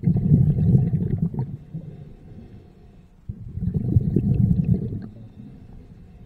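Underwater, a scuba diver's exhaled breath bubbles out in low bubbling bursts of about two seconds each, one at the start and another about three seconds in, with quieter inhalations between.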